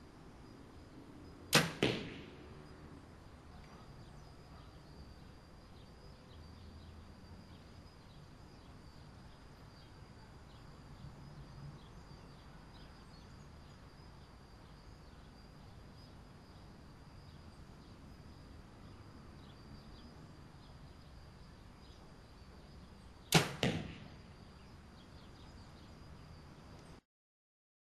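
Hoyt Ultratec XT3000 compound bow shot twice, about twenty seconds apart. Each release is a sharp crack, followed a fraction of a second later by a second, smaller crack.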